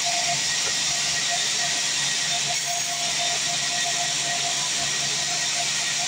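Sawmill bandsaw blade running and cutting lengthwise through a log: a steady, even hiss with a faint constant tone under it.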